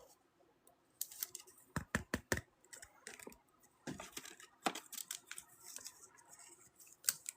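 Trading cards and their packaging being handled on a table: irregular light clicks, taps and short scraping rustles.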